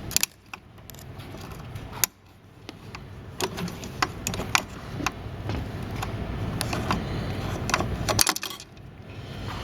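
Scattered clicks and light metallic clinks of screws, a screwdriver and metal brackets being handled while an electronic voting machine is taken apart, with a sharper click about two seconds in.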